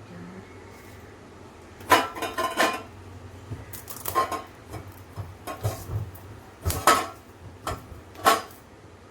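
Metal bowl and kitchen utensils clanking as they are handled: a string of irregular sharp knocks, some in quick clusters, the loudest about two seconds in and again near the end.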